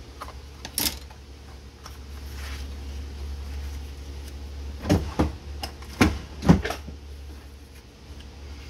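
Cardstock being handled and cut around with scissors, then several sharp knocks and taps as the scissors and paper are set down on a cutting mat. A low steady hum runs underneath.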